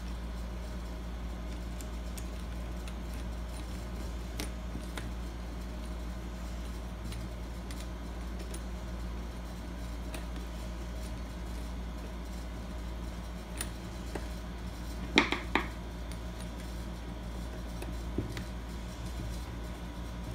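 Hand screwdriver turning the mounting screws of a door-lock trim plate into a wooden door, with faint scattered metal clicks and a quick cluster of three sharper clinks about fifteen seconds in, over a steady low hum. The screws are being run in but not yet tightened down.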